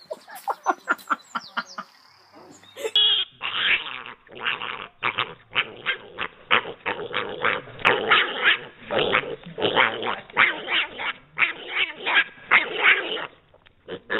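Mini pig squealing and grunting in short, loud calls, about three a second.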